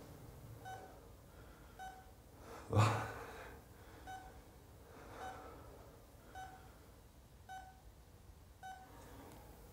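A hospital patient monitor beeping steadily with the heartbeat, one short beep a little slower than once a second. One louder, short sound about three seconds in.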